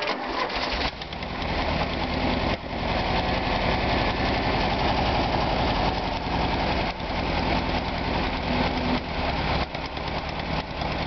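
Long-dormant Volkswagen Type 3 air-cooled flat-four engine started up: a second or so of starter cranking, then it catches and, from about two and a half seconds in, runs steadily, sounding pretty good.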